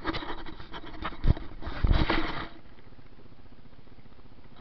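Handling noise of a small action camera being moved: rustling and knocks close to the microphone, with a sharp thump about a second in and another about two seconds in, then only faint steady background.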